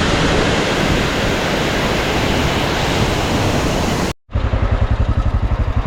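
Loud, steady rush of water from a cascading monsoon stream. About four seconds in it cuts off suddenly, and a motorcycle engine idles with an even, rapid low pulse.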